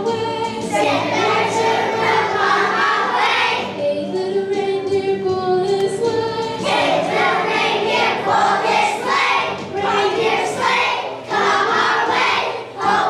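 Choir of young children singing a Christmas song. Long held notes give way to quicker, rhythmic singing about seven seconds in.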